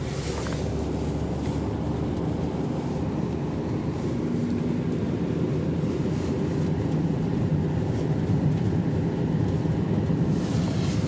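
Steady low rumble of a vehicle driving along an icy highway: engine and tyre noise, creeping slightly louder, with a brief hiss swelling near the end.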